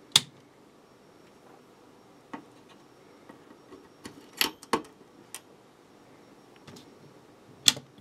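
A few sharp, separate clicks and taps, about six, the loudest at the start and near the end: multimeter test probes and the power supply's plastic output connector being handled against the switch's metal case.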